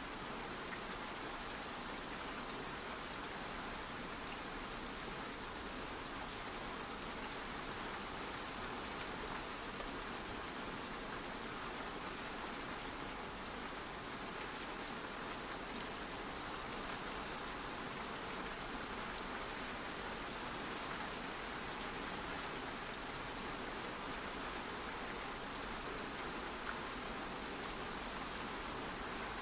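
Steady ambient rain falling, an even hiss with faint scattered drop ticks.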